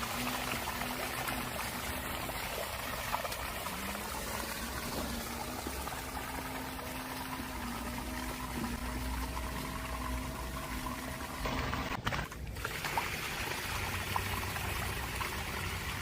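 Running water trickling and pouring steadily, with a brief dropout about twelve seconds in.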